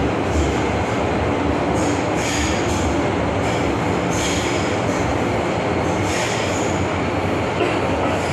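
MTR Island Line M-Train electric multiple unit running at speed, heard from inside the car: a steady rumble of wheels and traction gear on the rails. Brief high squeals from the wheels come every second or two.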